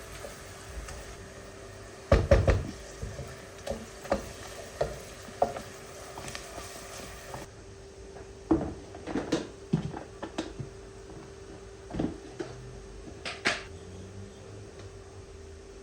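Dishes and kitchenware being handled: separate clattering knocks, loudest in a cluster about two seconds in, with scattered knocks later, over a steady low hum.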